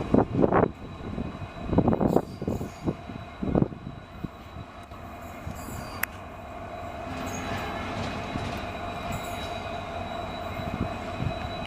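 Passenger train coaches rolling through the station, with irregular knocks of wheels over rail joints in the first few seconds. After that comes a steadier running sound with a thin, steady squeal from the wheels.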